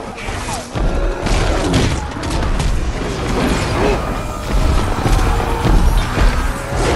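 Film battle soundtrack: a dense run of clashing, crashing impacts and deep booms over a steady low rumble, with orchestral music underneath.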